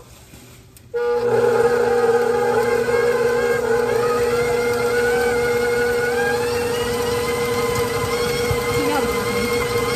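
Electric stand mixer switched on about a second in, then running steadily with a motor hum and a slightly wavering higher whine as it beats butter and sugar together.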